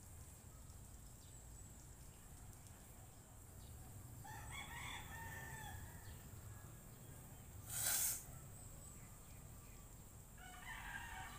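A rooster crowing twice, one crow about four seconds in and another starting near the end, over faint outdoor background. Between the crows, a short, loud rush of noise is the loudest moment.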